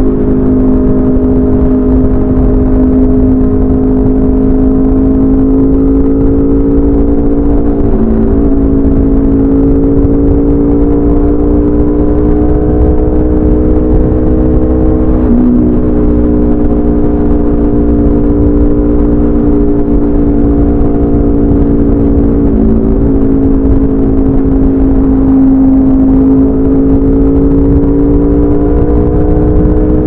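2016 Aprilia RSV4 RF's V4 engine running through a de-catted SC Project CRT exhaust at highway speed, its note climbing slowly in pitch with three brief dips about seven seconds apart. A steady low rush of wind sits underneath.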